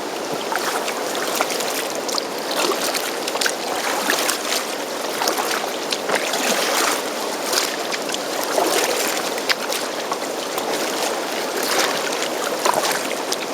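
Kayak being paddled: paddle blades dipping and splashing in the water, with drips, over a steady wash of water noise.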